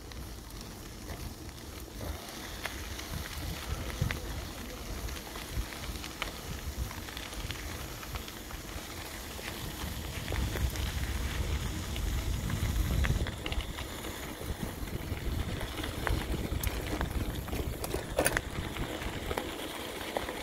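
Bicycle tyres rolling over a gravel trail: a steady crunching rumble scattered with small clicks, the low rumble growing louder about halfway through.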